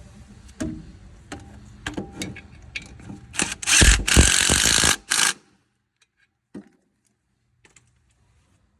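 Metal tools and parts clinking and knocking, then a loud rushing noise lasting about two seconds, followed by a few faint clicks.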